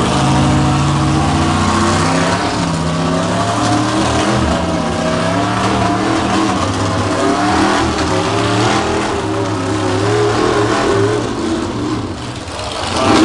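Pickup truck engine running hard under load as it drags a pulling sled down the track, the pitch wavering up and down.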